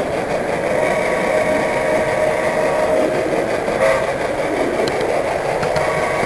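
Model train running along the track, heard from a camera riding aboard: a steady mechanical hum of the locomotive drive with wheel and rail noise, and a few light clicks about five seconds in.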